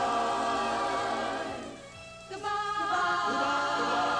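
Choir singing two long, held chords, the first fading out and the second starting again a little after two seconds in.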